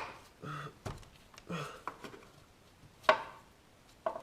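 A few sharp knocks and clicks of an ABS hydraulic module and its rubber grommets being handled and pressed together by hand, the loudest about three seconds in.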